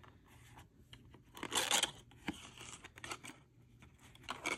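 Cardstock and paper rustling and scraping as a small folded cardstock gift box is pulled open from the bottom by hand, loudest a little over a second and a half in, with another sharp rustle near the end.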